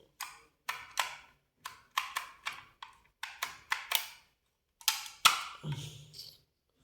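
Plastic fire alarm detector head being pushed and twisted against its mounting base: a quick run of irregular hard clicks and knocks as the notches fail to seat.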